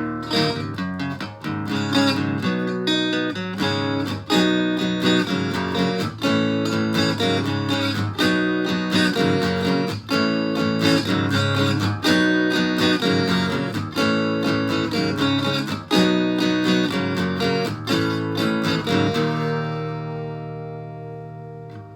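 Acoustic guitar with a Bartolini 3AV soundhole pickup, run through a BOSS DS-1 distortion pedal into an amp, strumming chords in a steady rhythm. Near the end the last chord rings and fades away.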